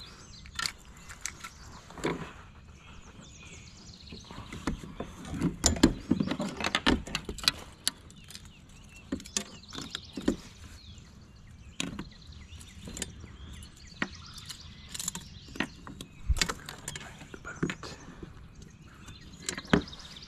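Irregular knocks, taps and clicks on a plastic kayak: a just-landed smallmouth bass and fishing gear being handled on the deck while the hook is worked out with pliers. The knocks are busiest a few seconds in.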